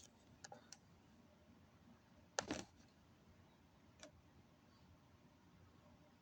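Near silence with a few short clicks, most likely handling of the camera or phone. The loudest is a quick double click about two and a half seconds in.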